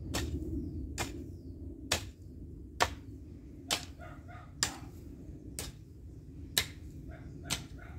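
Long-handled garden hoe chopping into dry soil at a steady pace of about one sharp strike a second.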